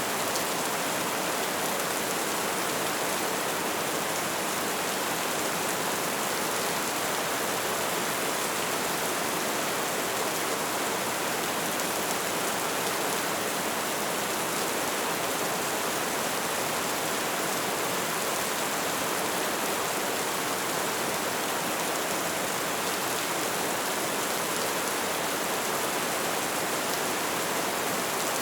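Steady rainfall: an even, unbroken hiss with no single drops or changes standing out.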